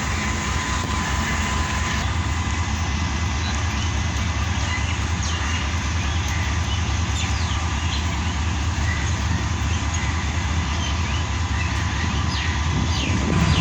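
Passenger train's steady low rumble, running on without change, with a thin steady whine above it.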